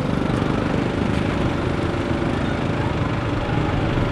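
A steady, low engine-like drone with no break.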